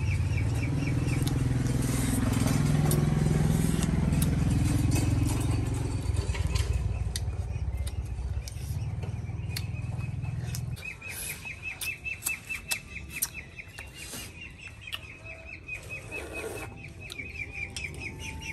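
Outdoor village ambience. A steady low engine hum stops abruptly about eleven seconds in. Rapid, evenly repeated high chirping is heard at the start and again through the second half, with scattered light clicks of a metal spoon against a ceramic bowl.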